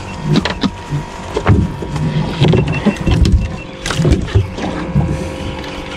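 Wind rumble on the microphone and irregular thuds and knocks on a fibreglass boat deck as a freshly landed blue runner is handled, over a faint steady hum.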